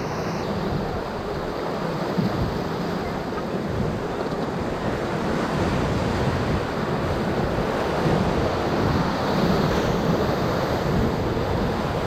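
Steady rush of whitewater around a raft on the Middle Ocoee River, with wind buffeting the microphone.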